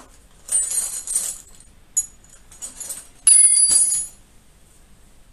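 Fabric bicycle saddle bags and their straps being handled and pulled apart: two loud rasping rustles, about half a second in and about three seconds in, the second the loudest, with smaller rustles and clicks between.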